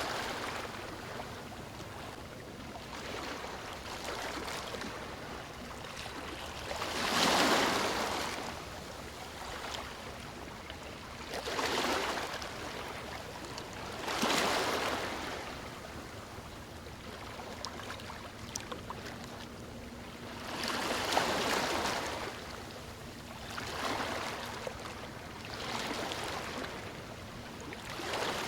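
Sea waves breaking and washing up the shore, swelling into a fresh surge every few seconds, with the biggest about seven seconds in and another around twenty-one seconds.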